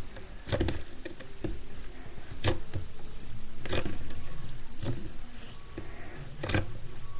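Glitter slime being pressed and poked flat on a wooden tabletop, giving a string of sharp pops and squishes about a second apart as trapped air bursts out.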